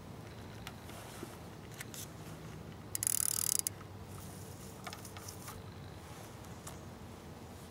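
Handling of fishing tackle at close range: scattered light clicks, and about three seconds in a short, louder rasp lasting well under a second.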